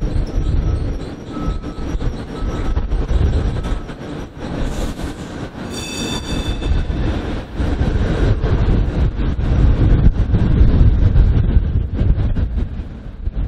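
PCC streetcar 1057 pulling away and running off along its track, with the motors and steel wheels rumbling on the rails. A brief high-pitched squeal comes about six seconds in, and the sound tails off near the end.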